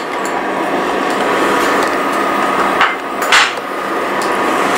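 Steady whir of an induction cooktop's cooling fan, with two sharp knocks of a metal spoon against the frying pan a little past halfway, the second louder.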